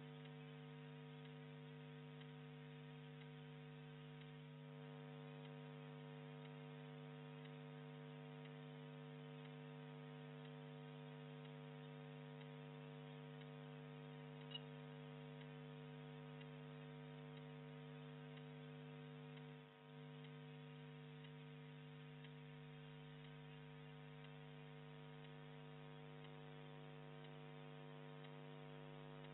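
Faint, steady electrical hum with a stack of even overtones over low hiss, broken only by one brief tick about halfway through.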